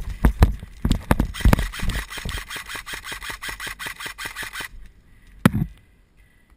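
Airsoft electric rifle firing a long full-auto burst: an even, rapid rattle of about eight shots a second that stops abruptly, followed a little later by one single sharp click. Before the burst, heavy thumps of the player moving through the grass.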